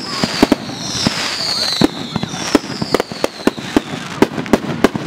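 Aerial fireworks shells bursting in a rapid string of sharp bangs, about three a second, while several high whistles fall in pitch overhead.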